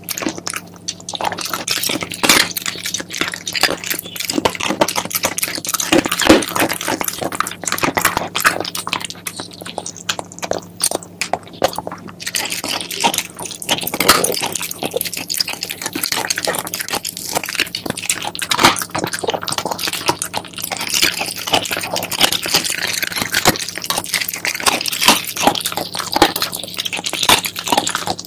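A Shiba Inu chewing and crunching chicken feet: a close, continuous run of bites with many small cracks of bone coming quickly one after another.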